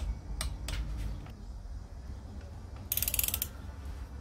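Ratchet torque wrench tightening the cylinder head bolts of a Yamaha XJ750 engine, first torque stage: a few sharp clicks in the first second or so, then a quick run of ratchet clicks about three seconds in.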